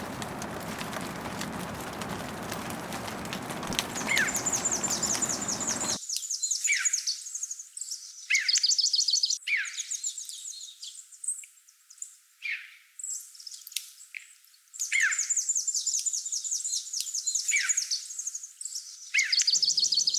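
A steady rushing noise like rain for the first several seconds, then songbirds singing: repeated very high, rapid trills and short falling whistle notes, over and over.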